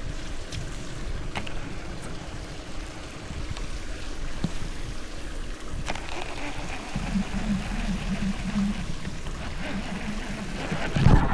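Wind rumbling on the microphone over open water, with water noise and a few light clicks. A low pulsing hum comes in about seven seconds in.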